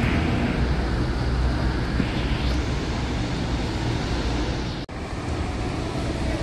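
Coach bus driving away over wet pavement: a steady low engine drone under the hiss of tyres on the wet road. The sound drops out for a moment about five seconds in.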